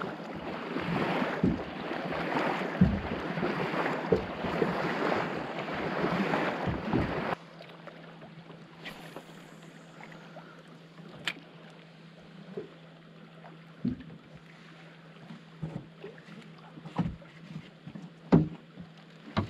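Wind and wave noise around a small boat, loud and gusting, cutting off abruptly about seven seconds in. Then a much quieter stretch with a steady low hum and a few scattered light clicks.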